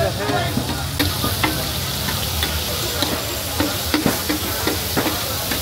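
Liver (kaleji) frying on a large flat tawa griddle, sizzling steadily, while a metal spatula scrapes and clacks against the griddle about once or twice a second.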